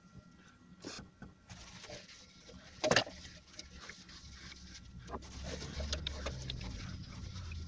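Handling noises from a Devilbiss FLG5 gravity-feed spray gun and its paint cup as it is emptied of thinners and wiped out. There is a sharp knock about three seconds in, a few light clicks, and a low rumble in the second half.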